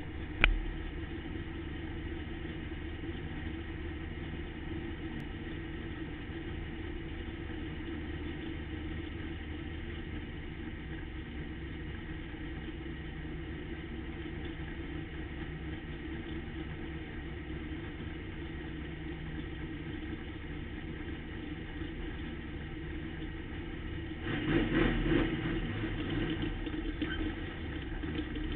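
Pro stock race car's engine idling steadily, heard from inside the car, with a sharp click right at the start. About 24 seconds in the engine briefly runs louder, then settles a little above its earlier idle.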